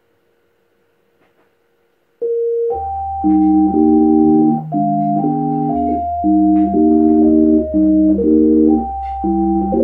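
Near silence, then about two seconds in a Yamaha A4000 sampler starts playing back electronic keyboard music: held organ-like chords over low bass notes, changing every half second to a second.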